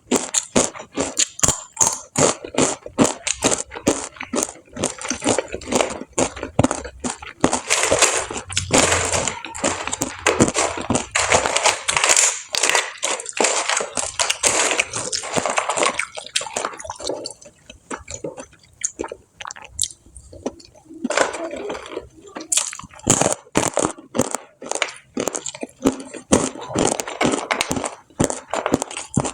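Close-miked chewing and crunching of crispy fried food, a dense, irregular run of crackling bites and chews, easing off for a few seconds past the middle.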